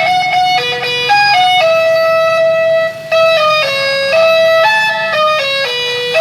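Electric telolet horn playing a fast melody, one note at a time, stepping between short and held notes, with a brief break about three seconds in.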